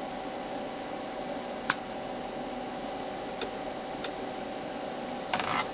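Steady background hum and hiss with a faint steady tone, broken by three faint sharp clicks and a short rustle near the end.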